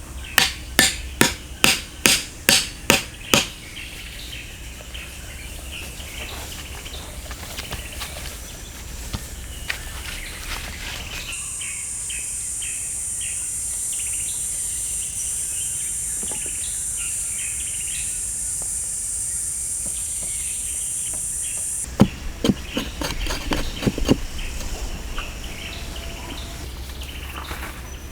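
A quick run of about eight even strikes of a tool on wood, then scattered bird chirps. A steady high-pitched insect drone runs through the middle for about ten seconds, and another few uneven strikes come near the end.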